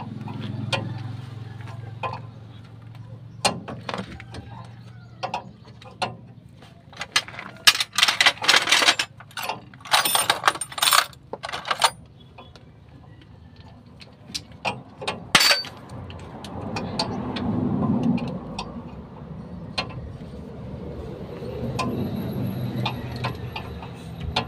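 Metal wrench clinking and clicking on a nut and bolt, in scattered sharp clicks with dense runs of rapid clicking in the middle stretch.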